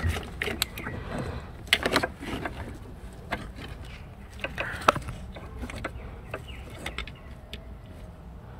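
Scattered clicks and clunks of parts and tools being handled in a car's engine bay during disassembly, with a cluster of knocks about two seconds in and a sharp knock about five seconds in, over a low steady hum.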